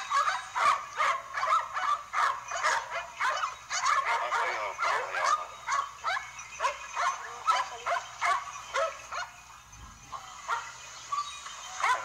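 A pack of hunting dogs barking excitedly, many overlapping barks in quick succession, with a short lull near the end.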